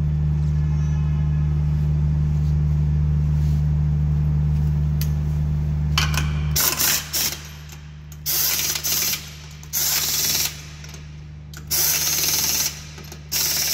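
Pneumatic impact wrench run on a car's wheel nuts in about six short bursts, starting about six seconds in, each burst hammering a nut tight. Before the bursts a steady low hum, which stops as they begin.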